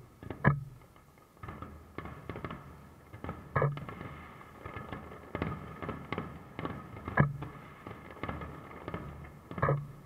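Aerial fireworks shells bursting: four loud bangs about three seconds apart, with many smaller pops and crackles between them.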